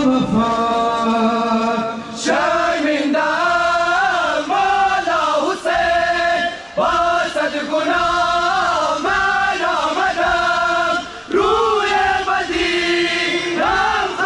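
Men's voices chanting a noha, a Shia mourning lament, together in a chorus with long held notes that bend up and down.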